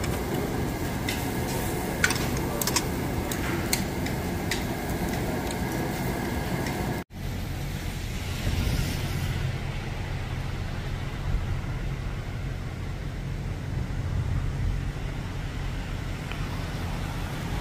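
Restaurant table noise with several sharp clinks of metal utensils. A sudden cut then gives way to a steady low outdoor rumble on a snowy street.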